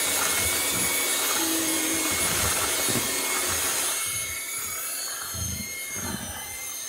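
Electric hand mixer running steadily, its beaters churning banana bread batter with walnuts mixed in. The motor whine gets a little quieter about four seconds in.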